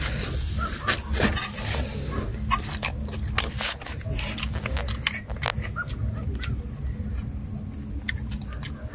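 Metal spoons clinking and scraping against a metal pan as food is eaten from it, in many short clicks. Under them a cricket chirps steadily at about five chirps a second, stopping near the end.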